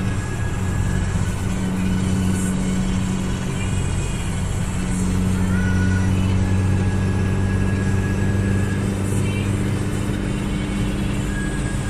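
Car cabin at motorway speed: a steady low drone from the engine and tyres on the road, with no changes in pace.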